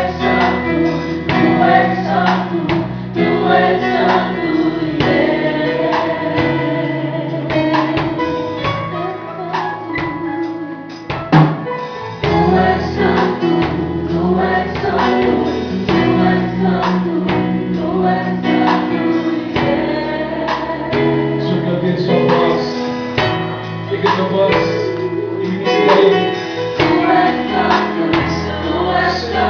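Gospel worship music: voices singing over instrumental accompaniment with a steady beat. It dips briefly about ten seconds in, then comes back with a sharp accent.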